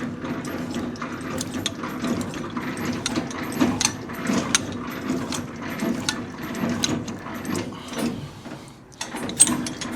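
Semi-trailer landing gear being cranked by hand: a steady run of gearbox clicks and clanks from the crank, easing off briefly near the end.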